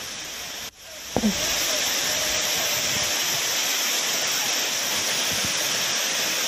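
Waterfall in full flow: a steady rushing of falling water that sets in about a second in, after a brief drop at a cut.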